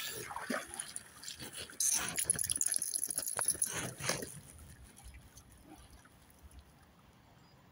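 Belgian Malinois–American Akita cross panting: a run of quick, noisy breaths starting about two seconds in and dying away after about four seconds.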